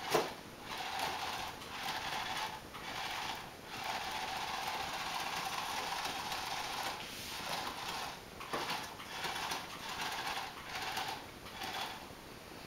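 A cat growling in long low rumbles broken by short pauses for breath, one stretch lasting about three seconds, a fearful growl at a spider in a paper bag. A sharp knock or rustle of the bag comes right at the start.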